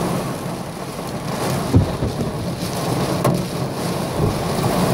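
Heavy thunderstorm rain and hail pouring down steadily, with a loud, sudden low crack of close thunder just under two seconds in and a sharp tick a little past three seconds.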